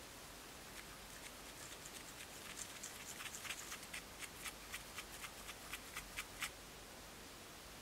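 Thin wooden stick stirring acrylic paint on a clear plastic sheet, mixing yellow ochre and white: a run of short sticky clicks, about four a second, louder after a couple of seconds and stopping shortly before the end.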